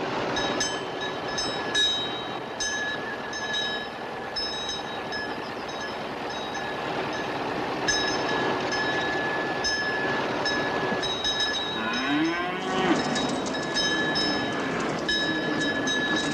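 An old fire engine's bell ringing with rapid, uneven strokes, each leaving a high ringing tone. About twelve seconds in, a calf moos once with a rising and falling call.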